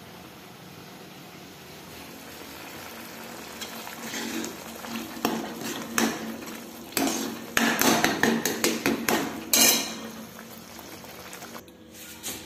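A steel ladle stirring masala in a steel pan, clinking and scraping against the metal in a quick run of strokes. The strokes start about a third of the way in, are loudest past the middle, and ease off near the end. Before them there is a steady faint hiss.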